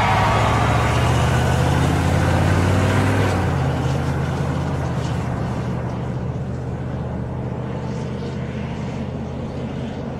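Motor vehicle driving along a road: a steady low engine hum with road noise, easing a little in level about three and a half seconds in.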